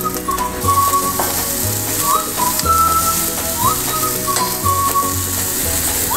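Strips of spiced eggplant sizzling in hot oil in a stainless steel frying pan as a spatula turns them. Background music with a whistled melody and a bass line plays over it.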